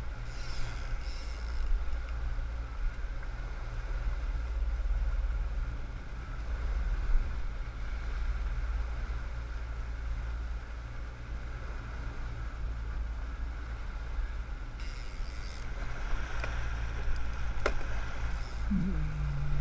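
Fishing boat's engine running at a steady, even pace while the boat is under way, with the rushing wash of the wake behind it.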